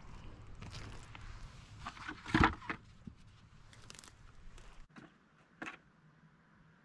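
Close handling noise as plastic water jugs and apples are set among dry brush and tree roots, with rustling and crackling and a sharp knock about two and a half seconds in, the loudest sound. A softer click follows near the end.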